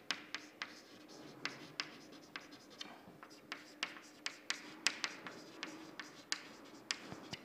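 Chalk writing on a chalkboard: a string of short, sharp taps and scrapes at an irregular pace as figures are written, over a faint steady hum.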